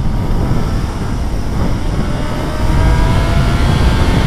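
Heavy wind rush on the microphone of a moving motorcycle, with the Suzuki B-King's 1340 cc inline-four engine faintly rising in pitch as it accelerates. The noise grows louder about two and a half seconds in.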